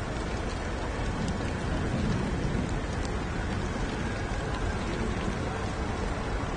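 Heavy rain falling on a paved street: a dense, steady hiss of rain.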